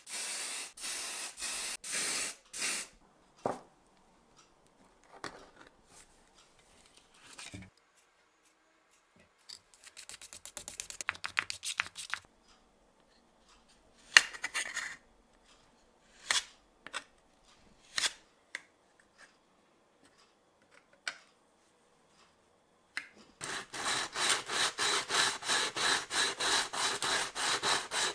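Hand work on the parts of an old manual coffee grinder under restoration. It opens with a few short hissing bursts, then scattered clicks and knocks, and ends with fast, even rubbing strokes, about three a second, in the last few seconds.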